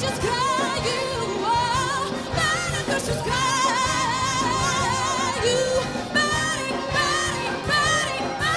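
A woman singing long held, wavering notes in a jazz arrangement of a Ukrainian folk song, backed by a big band with brass.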